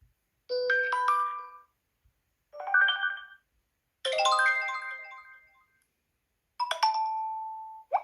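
Four short electronic chime alert tones from a Xiaomi Mi Mix 3's built-in sound set, played one after another with brief silences between; the last one ends on a held note.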